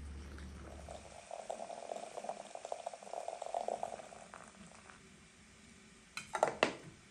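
Liquid gurgling for about three seconds, then a few sharp clinks near the end.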